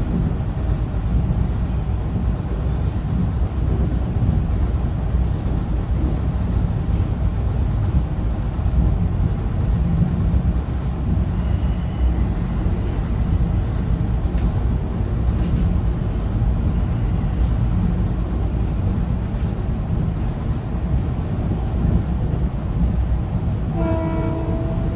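Metro-North commuter train running along the track with a steady low rumble. About a second before the end, the train's horn starts to blow, a steady chord of several pitched tones.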